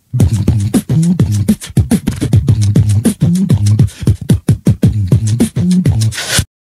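Recorded beatboxing: a fast rhythm of mouth-made kick and snare clicks over a low humming vocal bass line, cutting off abruptly near the end.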